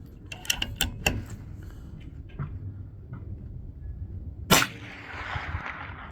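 A few light mechanical clicks within the first second or so, likely the bolt of a Bergara B14R .22 LR bolt-action rifle being worked. About four and a half seconds in comes a single sharp rifle shot, a CCI Mini Mag .22 LR round, followed by about a second and a half of noisy tail.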